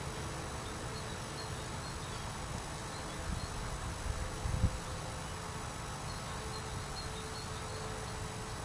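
Steady outdoor background noise with a faint steady hum, and a few low bumps about three to five seconds in.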